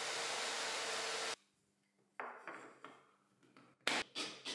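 Table saw motor running steadily, cutting off abruptly about a second and a half in. Then short bursts from a cordless drill driving screws into plywood.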